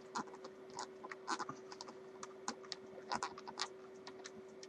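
A hand screwdriver driving small screws into an electric guitar body, making irregular small clicks and scrapes as the screws are turned down flush. A steady faint hum runs underneath.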